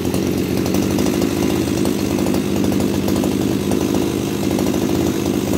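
Maruyama BIG-M JC26 brush cutter's 26cc two-stroke engine running steadily at an even speed, smoothly and without stuttering.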